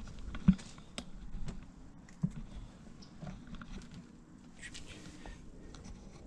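Handling noise as a bicycle is stopped, parked on its kickstand and the camera repositioned: scattered clicks and knocks, with two sharp thumps about half a second and about two seconds in, and a short rustle near the end.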